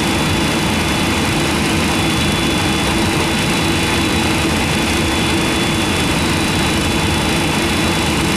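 Steady roar with a high whine, heard inside the cockpit, as an MD-10's GE CF6 engine is motored by its air starter near top motoring speed, about 19% N2, before fuel is introduced.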